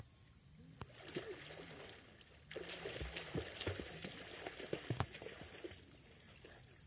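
Swimmers splashing and kicking in a shallow river. A run of sloshing splashes starts about two and a half seconds in and dies down near the end.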